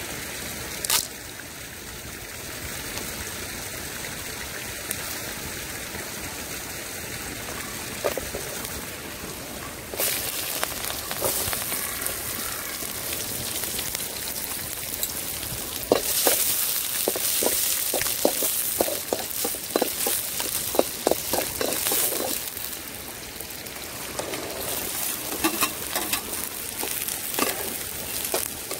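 Frying in hot oil in an aluminium kadai over a wood fire. A steady low hiss turns into a louder sizzle about ten seconds in, as chopped garlic, red and green chillies and onion hit the oil. From about sixteen seconds a run of sharp ticks and scrapes sounds over the sizzle as the pan is stirred.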